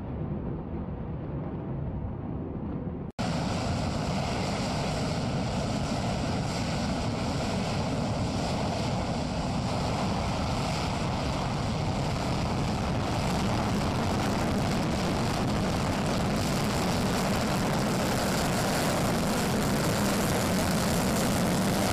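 B-1B Lancer bomber's four afterburning turbofan jet engines: first a muffled low rumble as the bomber climbs away. Then, after a sudden cut about three seconds in, a loud, full roar of a takeoff and close pass on afterburner, growing slightly louder near the end.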